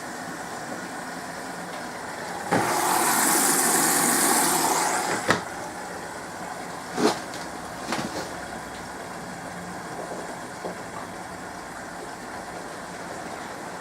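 SMEG 11 kg washing machine running with a steady hum; about two and a half seconds in, a loud hiss sets in for nearly three seconds, then stops with a sharp click, followed by two more clicks or knocks a couple of seconds apart.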